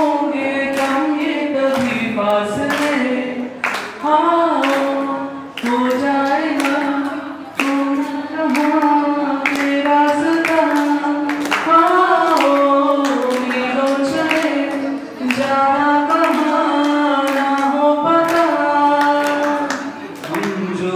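A voice singing a melody as music, with frequent sharp percussive strikes.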